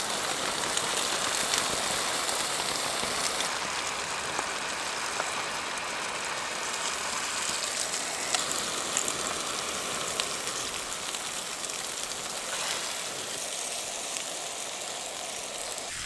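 Steady hiss of a steak sizzling in a frying pan on a gas canister stove, with rain pattering on the tent.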